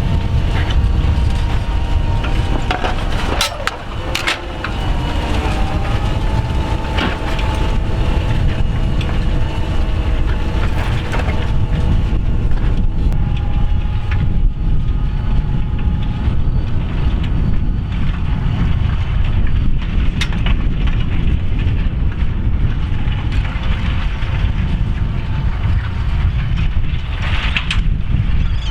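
Fendt 724 tractor engine working hard under steady load, pulling a five-furrow plough uphill. A couple of sharp cracks about three to four seconds in, with a brief dip in the engine sound.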